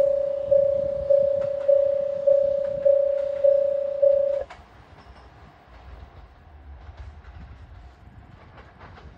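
Railway level-crossing warning bell ringing, a single repeated ding just under twice a second, which cuts off abruptly about four and a half seconds in. After that comes the faint low rumble of a JR Hokkaido H100 diesel-electric railcar pulling away.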